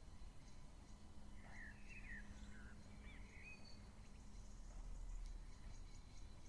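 A few faint bird chirps, short curved notes clustered together starting about a second and a half in, over a low steady outdoor rumble with faint high ticking.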